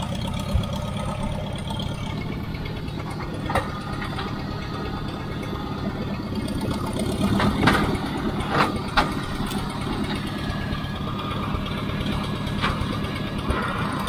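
Small compact loader's engine idling steadily, with a few sharp metal clanks, the loudest about eight seconds in, as the pallet forks and tote are handled.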